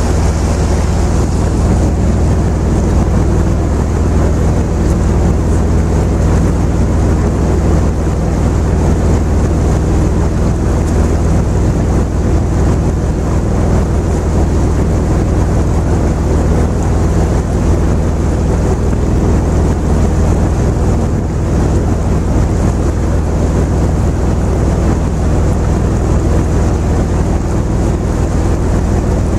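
Steady low drone of a river cruise boat's diesel engine under way, with wind noise over it.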